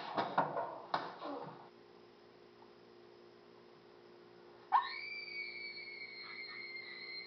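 A few sharp knocks and crashes in the first second and a half. Then a long, high scream breaks out suddenly in the last third and is held, sinking slightly in pitch, over a faint steady electrical hum.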